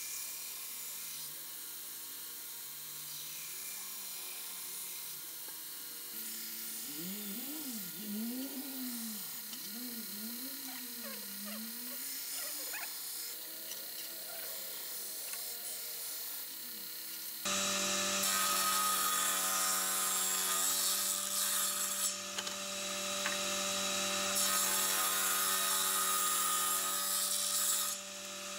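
Faint workshop hiss, then, from about two-thirds of the way in, an electric table saw running steadily with its blade cutting through a wooden board.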